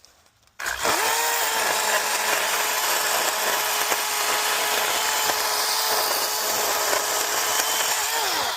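Ryobi 18-volt cordless power saw cutting into a tree. The motor starts about a second in, runs at a steady pitch and winds down near the end.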